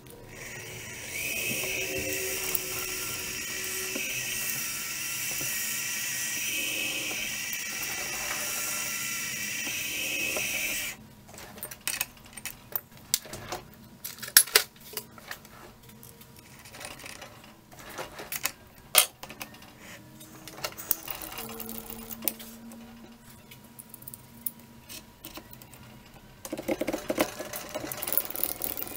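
Small milling machine's spindle running steadily, with a small bit in its drill chuck working the aluminium part, then switched off about eleven seconds in. Scattered metal clicks and knocks follow, and near the end a denser rattle as a long twist drill is fitted into the drill chuck.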